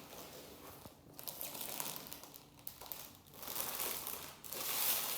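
Packaging crinkling and rustling as a parcel is unwrapped by hand, in uneven spells with short pauses and louder near the end.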